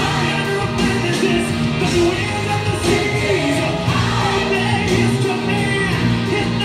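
Gospel song playing, with singing over a steady beat and sustained bass.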